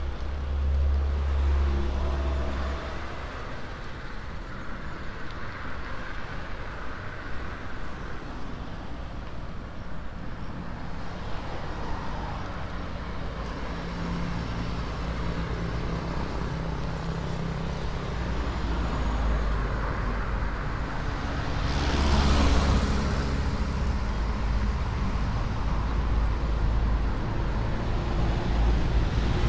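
Road traffic going by on a two-lane road: a steady low rumble of passing cars, with one vehicle passing close about three-quarters of the way through, the loudest moment.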